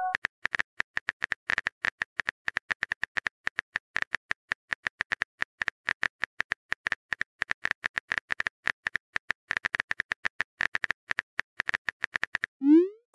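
Rapid tap clicks of a phone keyboard typing sound effect, several a second, one for each letter as a text message is typed. Near the end comes a short rising pop, the message-send sound.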